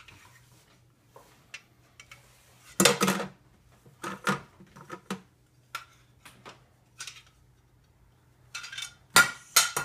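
Toy play-kitchen pieces, a play pizza set with its plate and utensils, clattering and clicking as they are handled: a scattering of separate knocks, the loudest about three seconds in and a quick cluster near the end.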